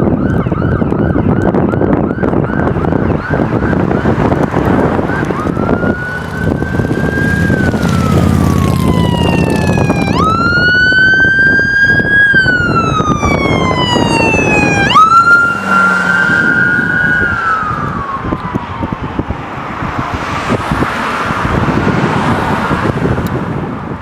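Emergency vehicle sirens passing: an electronic siren in a fast yelp, then a fire engine's mechanical Q siren winding up and coasting down, sharply peaked twice more, each time falling slowly in pitch. Low air horn blasts sound under the Q twice, and the sirens fade near the end.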